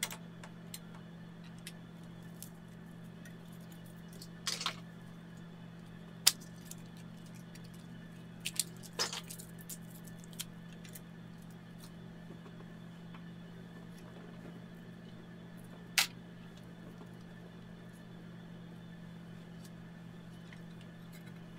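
Small hard parts clicking and tapping now and then as they are handled and set into a plastic toolbox drawer insert, with a few sharper clicks, over a steady low hum.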